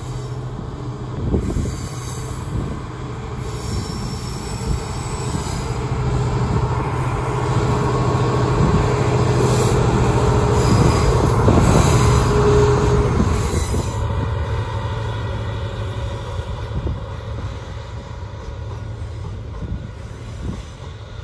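Freightliner Class 66 diesel-electric locomotive passing under power with a train of loaded box wagons: a steady low engine tone that grows louder to a peak about halfway through, then eases off as the wagons roll by. Some wheel squeal rises as the locomotive draws level.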